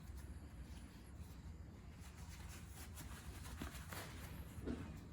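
Faint light clicks and taps from handling tools, over a low steady rumble.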